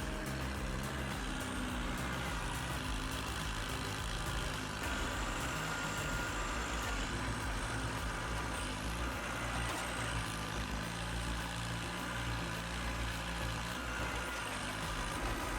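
Heavy diesel vehicle engine running steadily.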